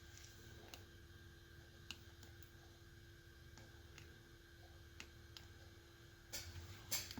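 Faint, scattered clicks of the push buttons on a Dodge FOBIK key fob being pressed to test it after a solder repair, with a couple of louder clicks near the end.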